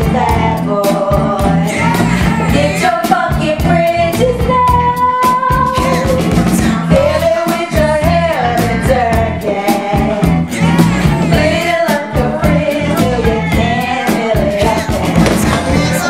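Upbeat pop song with singing over a steady drum beat.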